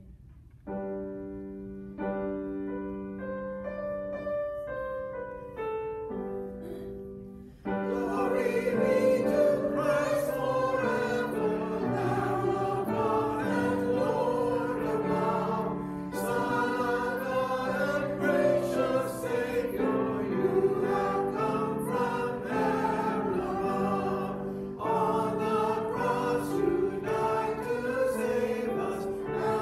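A hymn being sung in church. A keyboard plays an introduction of held chords, and about eight seconds in the congregation joins, singing along with the accompaniment.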